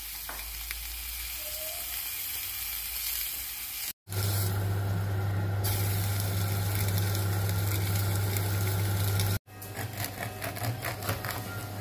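Skewered octopus tentacles sizzling steadily on a hot ridged grill pan. About four seconds in the sound cuts, and the sizzle carries on under a loud steady low hum; near the end it cuts again to a knife sawing through a crusty loaf in short irregular strokes.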